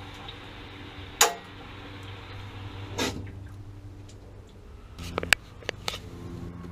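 Sharp knocks and bumps as a water heater tank is gripped and moved: one loud knock about a second in, another near three seconds, and a quick run of knocks near the end, over a steady low hum.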